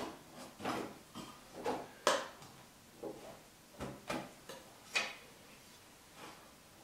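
Light knocks and scrapes of the kit's gray plates and arch being handled and fitted into their slots on a tabletop: about a dozen irregular taps, the loudest about two and five seconds in.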